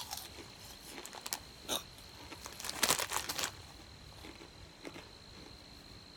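Crunching as hard rye breadsticks are bitten and chewed, with a cluster of louder crunches about three seconds in.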